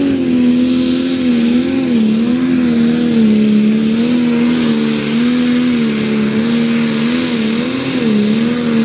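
Pulling tractor's engine held at full throttle as it drags the weight sled, a steady high-revving note with brief dips in pitch several times, over a rushing exhaust hiss.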